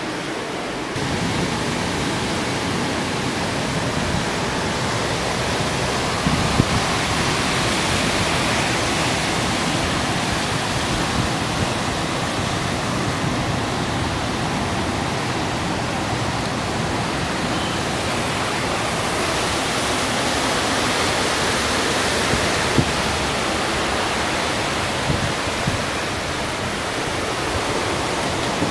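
Steady rushing roar of ocean surf, with a couple of brief knocks.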